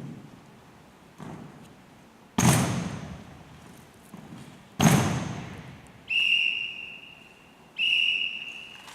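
Drill rifles striking sharply in a rifle drill routine: a light knock, then two loud echoing cracks a couple of seconds apart. These are followed by two short, steady whistle blasts near the end.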